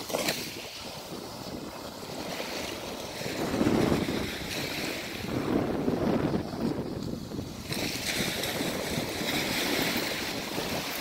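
Small waves washing up the beach, with wind on the microphone that rises and falls in gusts, loudest about four and six seconds in.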